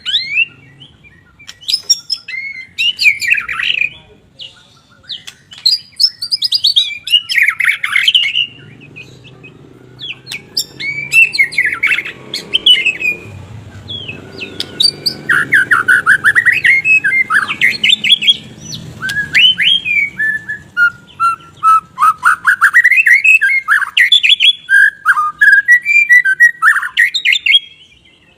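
White-rumped shama singing a long, varied song: sweeping whistled phrases, rapid chattering trills and sharp notes, with short pauses between bursts.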